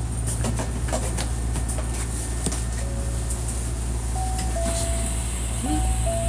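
Hankyu 1300-series train standing at a station, its equipment giving a steady low hum with light clicks. From about four seconds in, a two-note descending chime sounds and repeats, typical of the door-closing chime, with a high hiss joining it.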